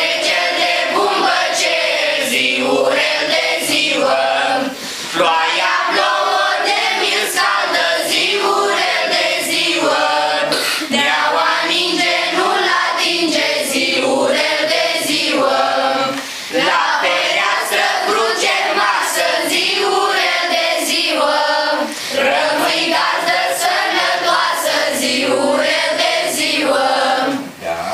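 A children's choir singing a Romanian Christmas carol (colindă) together, line after line, with short pauses between phrases. The singing stops near the end.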